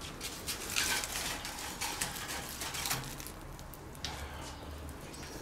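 Wood fire crackling in a steel fire bowl, with clinks and scrapes of metal tongs shifting burning logs on the grate.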